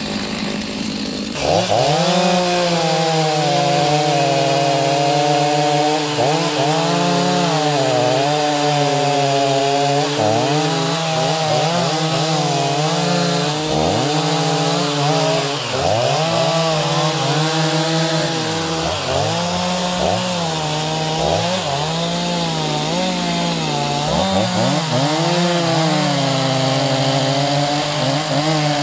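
Two Stihl two-stroke chainsaws, a 45 cc MS 251 and a 64 cc MS 390, cutting through hardwood logs at once. They idle briefly, then go to full throttle about a second and a half in. The engine pitch sags and recovers again and again as the chains load up in the wood.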